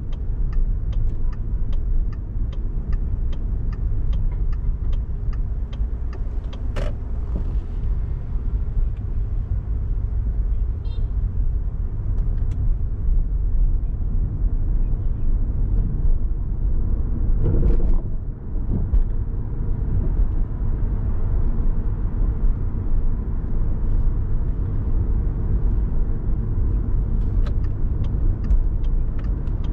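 Car driving on city streets: a steady rumble of road and engine noise. A rapid, even ticking runs about three times a second at the start and again near the end, with a sharp click about seven seconds in and a brief louder burst around eighteen seconds.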